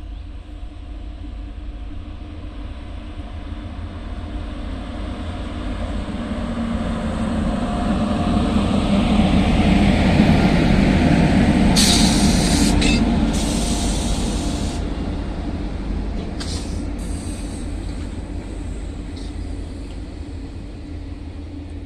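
A WAP7 electric locomotive hauling a passenger express train passes by, its steady hum and rumble growing louder to a peak about halfway through, then fading. A few brief high hissing bursts come just after the loudest point.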